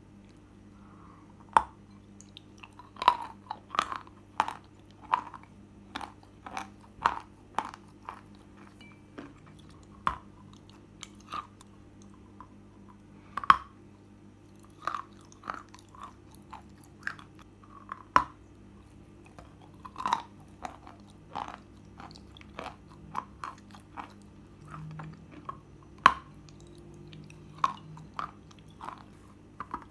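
Soft chalk being bitten and chewed close to the microphone: irregular crisp crunches, often several in quick succession, over a faint steady hum.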